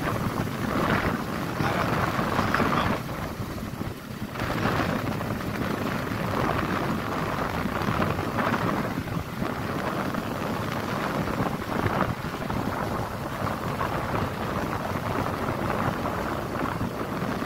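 Auto-rickshaw on the move: a steady rushing din of wind buffeting the microphone over the vehicle's engine and road noise, easing briefly about four seconds in.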